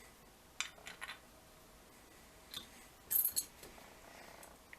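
Small metal lock parts clicking and clinking as a Kwikset lock cylinder is handled while being taken apart: a few light separate taps, the loudest little cluster about three seconds in.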